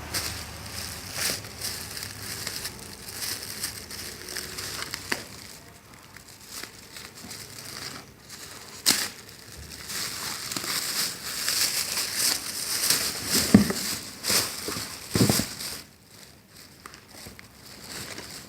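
Packaging being handled and opened, crinkling and rustling irregularly with a few sharp knocks, quieter near the end.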